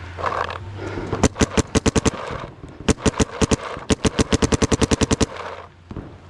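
Paintball marker firing rapid strings of shots, about ten a second, in three bursts with short pauses between them.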